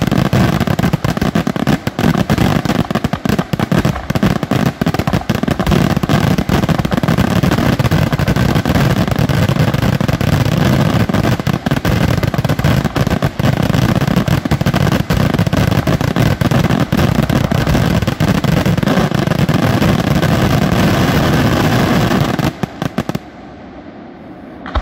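Aerial firework shells bursting in a dense, continuous barrage, a rapid unbroken stream of bangs that stops suddenly about 23 seconds in.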